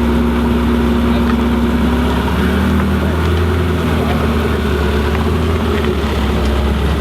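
A car engine idling with a steady low drone.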